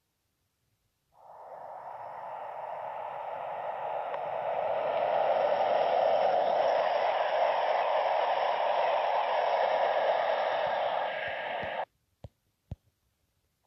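Passenger train coming through the station: a rushing noise of wheels on rails that builds up over a few seconds, holds steady and loud, and then cuts off abruptly near the end.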